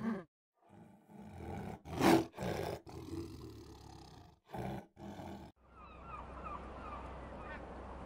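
White tiger giving a series of short roars, the loudest about two seconds in. From about six seconds a flock of birds calls over water in short rising-and-falling cries.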